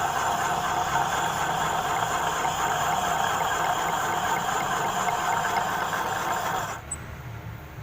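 Metal lathe running steadily while boring out the camshaft bearing housing in a motorcycle cylinder head. The sound cuts off sharply near the end.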